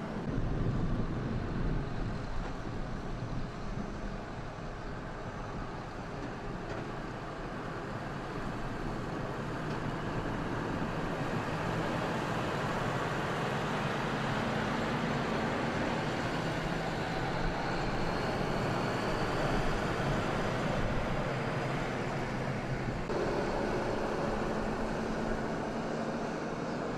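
Flatbed tow truck running and moving off along a road: a steady engine hum and tyre noise that grow louder about a third of the way through.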